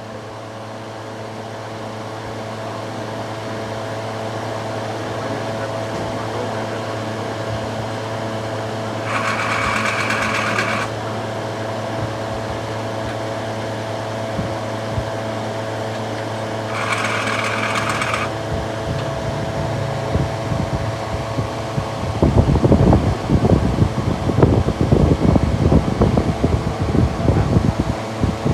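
A steady mechanical hum runs throughout, twice cut across by a short, sharp hiss of about a second or two. Near the end, irregular low rattling knocks come in and grow louder.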